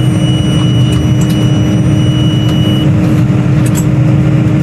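Tractor engine running steadily while driving a round baler across the field, heard from inside the tractor cab. A thin steady high tone sounds over it for about the first three seconds, then stops.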